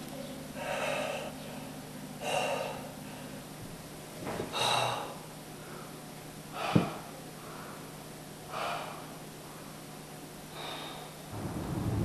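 A man breathing hard, catching his breath with a loud breath about every two seconds. A single sharp click comes about two-thirds through, and a low rumble starts up just before the end.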